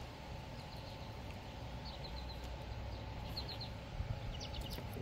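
Small bird chirping in quick runs of three or four high notes, several times, over steady outdoor background noise. Two soft taps about four seconds in.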